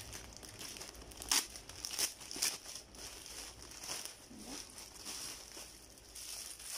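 Parcel packaging crinkling and rustling as it is handled and unpacked by hand, with a few sharper crackles a little over a second in and around two seconds in.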